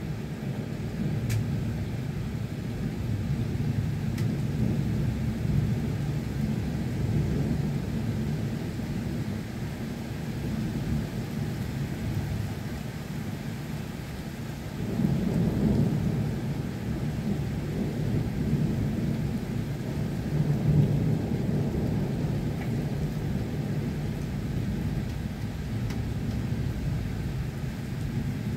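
Steady rain during a thunderstorm, with a low rumble of rolling thunder that swells about halfway through and again a few seconds later.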